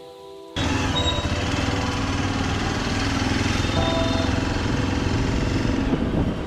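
Hero Xpulse 200's single-cylinder engine running as the motorcycle is ridden, with wind noise on the microphone, cutting in suddenly about half a second in after faint music. The engine has a newly fitted piston and is running on petrol with added two-stroke oil.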